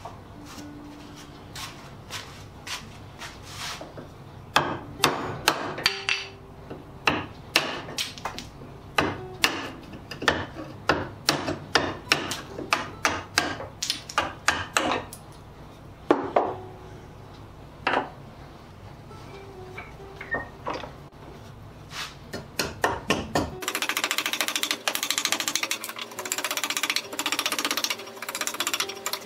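Wooden mallet striking a chisel into a hardwood block: repeated sharp knocks in quick clusters, over a steady low hum. Near the end the work sound turns into a fast, continuous rasping, sped up.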